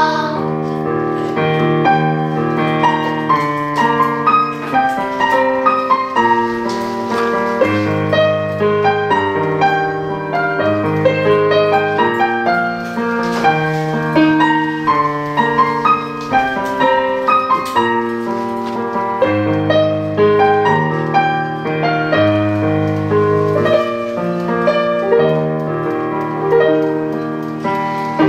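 Piano playing an instrumental passage with no singing: a melody over a line of low bass notes.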